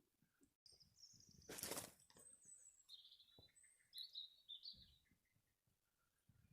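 Faint outdoor ambience with a few short, high bird chirps scattered through it, and a brief rush of noise about one and a half seconds in.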